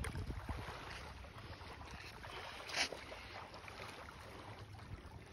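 Faint wind on the microphone with an uneven low rumble, and a brief hiss about three seconds in.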